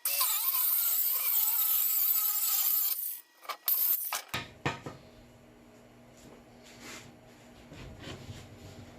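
A saw cutting through wood for about three seconds, followed by a few short knocks. Then a sudden change to a quiet low hum.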